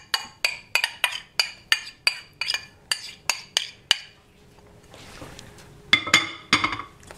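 A metal utensil tapped repeatedly against a stainless-steel cooking pot, evenly spaced clinks with a ringing tone, about three a second, stopping about four seconds in. A few more clanks from the pot come near the end, as it is handled by its handle.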